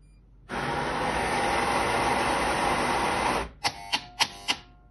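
The built-in coffee grinder of an Unicum Nero vending machine runs for about three seconds, grinding beans, then stops abruptly. This is the final control grind that flushes the last of the cleaning agent from the burrs. A few sharp clicks follow near the end.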